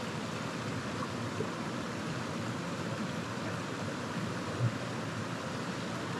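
Shallow mountain stream flowing steadily over rocks, with one brief soft bump about four and a half seconds in.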